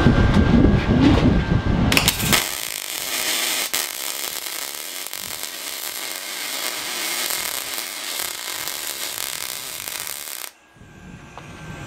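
A low rumble for about two seconds, then a MIG welding arc on aluminium strikes: a steady hiss that cuts off sharply near the end.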